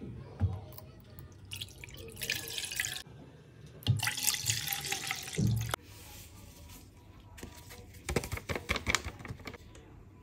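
Coconut milk pouring into a nonstick casserole pan in two steady pours, each a second or more long. Near the end comes a quick run of light ticks and rustles as agar-agar powder is shaken from its packet.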